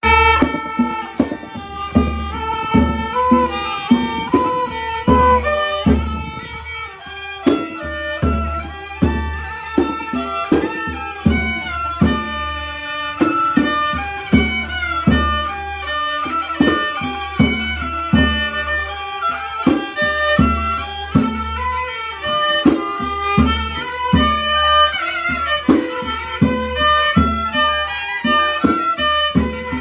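Khmer kantrum folk music from a mahori ensemble: a bowed fiddle melody over a steady, driving drum beat.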